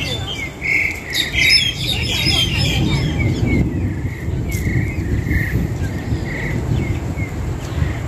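A tree full of wild starlings and mynas calling: a clear note repeated about once a second, with a burst of busy chattering whistles in the first few seconds, over a steady low rumble.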